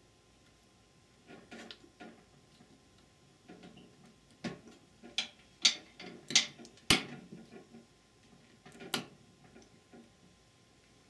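Irregular light clicks and knocks of hands working a small plastic orifice into the metal transmission case. The clicks are sparse at first, then cluster about halfway through, the sharpest one about seven seconds in.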